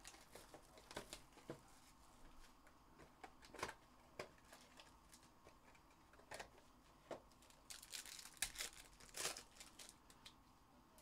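Faint crinkling, tearing and tapping as a cardboard trading-card hobby box is torn open and handled, with a denser run of rustles near the end.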